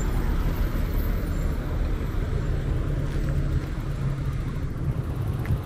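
City street traffic: a steady rumble of motor vehicle engines, with a low engine hum standing out through the middle.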